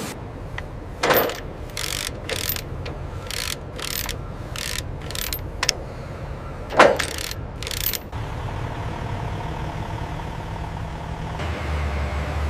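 Heavy machinery running under a low steady hum, with a run of irregular sharp metallic clicks and clanks. From about eight seconds in these give way to a steadier machine drone.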